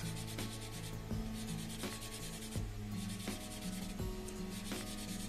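Sandpaper rubbing back and forth on a plastic model car part, smoothing off a burr, in repeated light strokes. Background music plays underneath.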